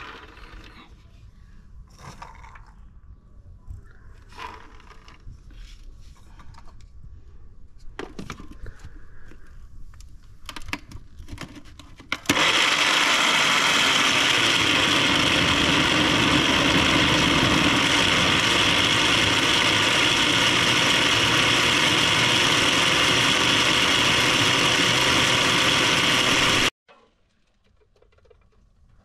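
Electric blender running steadily for about fourteen seconds, crushing a jar full of pomegranate arils into juice; it starts suddenly about twelve seconds in and cuts off suddenly near the end. Before it, light clatter of pomegranate arils being poured into the plastic blender jar.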